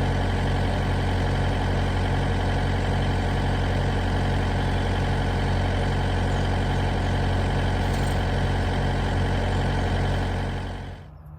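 A motor vehicle engine running steadily at an even speed, with no revving, stopping near the end.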